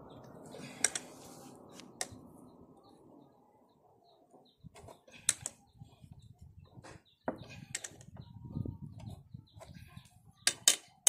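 Scattered sharp metallic clicks and taps with handling noise between them, from tools and engine parts being handled during engine assembly. A brief quiet stretch falls about four seconds in, and a cluster of clicks comes near the end.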